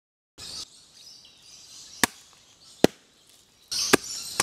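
Sharp knocks of blows being struck, two about a second apart, over a steady hiss of forest insects. Near the end the background grows louder and further knocks begin.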